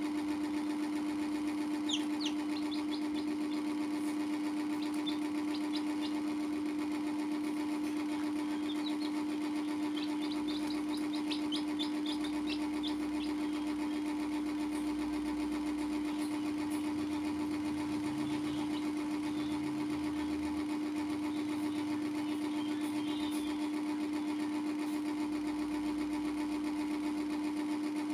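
A steady mechanical hum, the loudest sound, with young chicks cheeping in short runs of high, quick peeps several times, most busily around ten to twelve seconds in.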